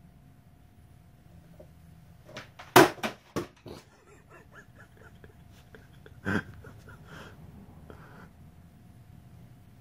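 A quick run of sharp knocks and taps about two and a half to four seconds in, then a single louder thump and a few faint taps: a cat moving about on top of a wooden bookshelf.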